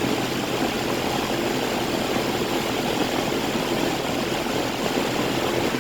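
GMC central air conditioner's outdoor condensing unit running steadily: the rush of its condenser fan over a low compressor hum.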